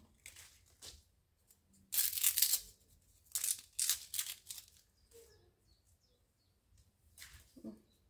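Sheaths being torn off young bamboo shoots by hand with a knife: a loud tearing rip about two seconds in, then a quick run of shorter rips, and a few fainter ones near the end.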